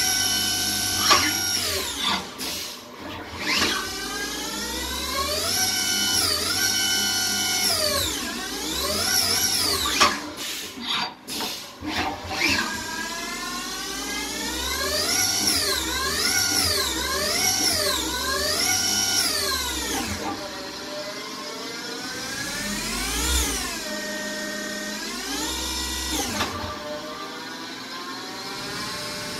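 Haas CL-1 CNC lathe running through a program without a part: its motor drives whine, the pitch ramping up and down over and over as the axes traverse the gang-tool plate and the speed changes. The whine drops away briefly twice, once early on and once about eleven seconds in.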